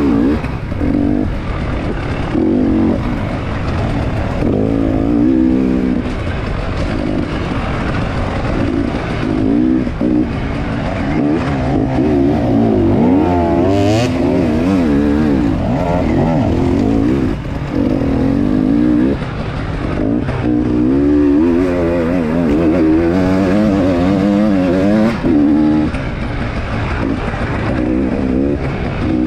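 Enduro dirt-bike engine heard from on board, revving up and down continuously as the rider accelerates and shifts along a rough trail, with a sharp knock about halfway through.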